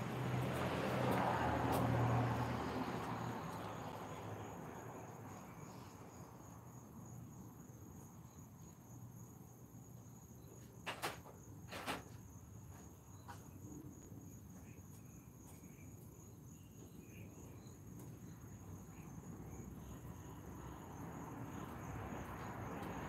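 Quiet outdoor ambience with crickets trilling steadily at a high pitch. A broad noise fades away over the first few seconds, and two sharp clicks or knocks come about a second apart near the middle.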